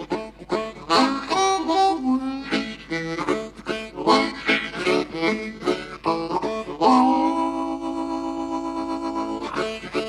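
Hohner Marine Band diatonic harmonica in low D played solo in a blues style: a fast run of short, choppy notes. About seven seconds in comes one chord that scoops up slightly at its start and is held for nearly three seconds before short notes resume.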